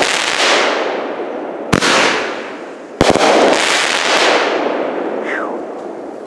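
Consumer firework cake firing: two sharp bangs, each followed by loud crackling that fades. A short falling whistle near the end.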